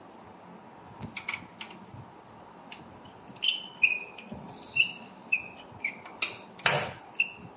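A screwdriver turning and tightening terminal screws on plug-in circuit breakers: a few light metal clicks, then short squeaks about twice a second as the screw is turned, with one brief louder scrape near the end.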